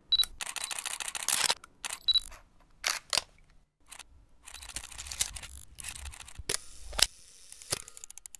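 A run of sharp clicks and snaps: a rapid string of them in the first second and a half, then scattered single cracks.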